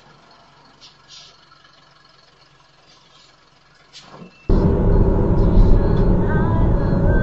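Faint, quiet background for the first few seconds. Then, about four and a half seconds in, steady road and engine noise from a moving car, heard from inside the cabin through a dashcam.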